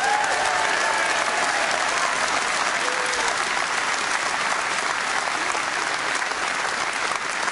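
Large audience applauding steadily, with a few voices calling out over the clapping in the first seconds.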